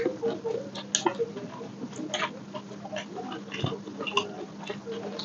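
Close-up chewing and lip smacking of people eating egg omelette with gravy: an irregular run of short smacks and clicks, several a second, over a faint steady hum.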